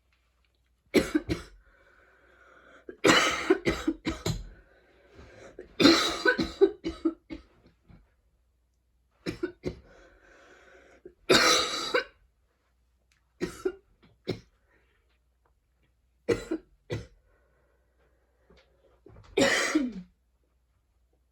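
A young woman in a coughing fit: about eight bouts of repeated hacking coughs, separated by faint wheezy breaths. It is a painful, choky attack, which she puts down to going to the gym two days in a row.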